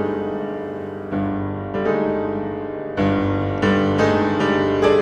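Piano music with chords struck every half second to a second, each ringing on into the next.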